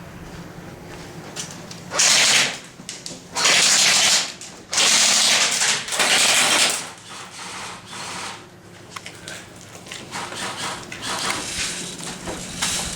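Airsoft guns firing on full auto in several short bursts, four loud ones between about two and seven seconds in and quieter rattling bursts later.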